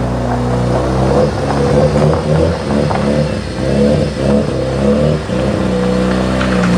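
Mazda RX-7 FC Turbo II's 13B turbocharged twin-rotor rotary engine running at low speed, its pitch rising and falling with small throttle changes from about one to five seconds in, then settling steady.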